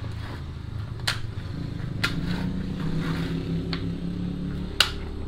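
Vinyl post-wrap pieces clicking as they are pushed together by hand: about four short sharp clicks, the loudest near the end. A steady low mechanical hum runs underneath.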